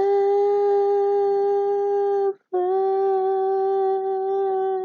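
A solo voice singing unaccompanied, holding one long steady note. It breaks off briefly about two and a half seconds in, then takes up the same note again.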